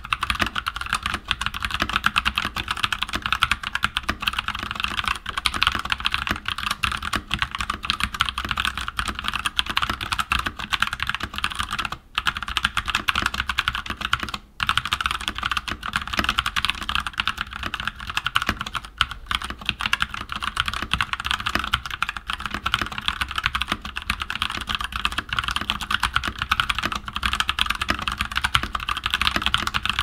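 Fast, continuous typing on a Keychron K14 mechanical keyboard with Keychron Mechanical Brown switches, which are tactile rather than clicky: a dense clatter of keystrokes, broken by two brief pauses about twelve and fourteen and a half seconds in.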